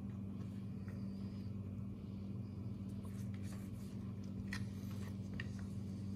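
Light clicks and taps of the chainsaw's plastic carburetor housing and carburetor being handled and lifted out by gloved hands, over a steady low hum. The clicks are scattered, mostly in the second half.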